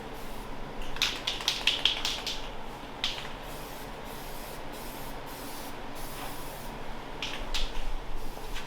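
Paint spraying: a steady hiss, with short, sharper spurts about a second in, around three seconds, and again near the end.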